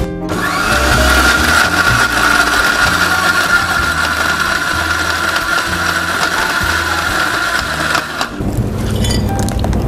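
Electric mixer grinder (mixie) running steadily with a whine, blending palm-fruit (ice apple) milkshake with jaggery syrup. It cuts off near the end.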